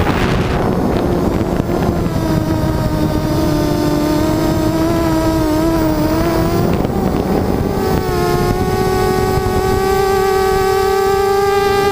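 Quadcopter's electric motors and propellers whining in flight, the pitch wavering up and down with the throttle and settling a little higher and steadier about eight seconds in, with a rushing noise at times.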